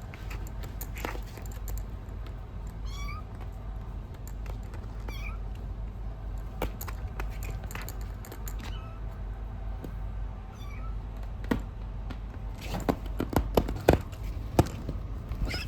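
Kitten mewing: about three short, high, thin calls that bend in pitch, a few seconds apart. Near the end comes a quick run of sharp clicks or taps, the loudest sounds here, over a low steady hum.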